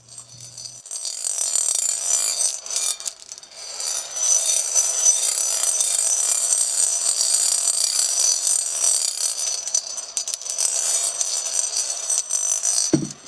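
Toy gumball machine running, plastic gumballs rattling as they swirl around inside with a steady whir. A short falling electronic tone sounds near the end as it stops.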